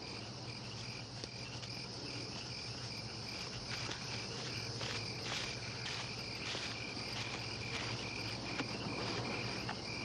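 Crickets chirping in an even, repeating rhythm as a night-time chorus, with a few faint clicks through it.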